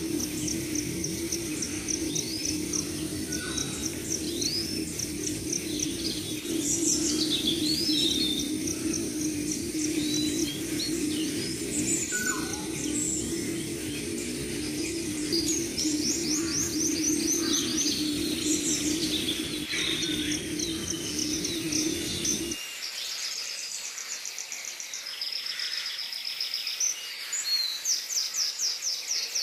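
Several wild birds chirping and calling, with quick rising and falling whistles and fast trills, over a steady low hum that cuts off suddenly about three-quarters of the way through.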